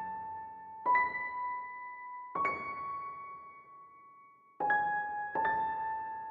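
Slow electric-piano music: single notes struck one at a time, about four of them, each ringing on and fading before the next.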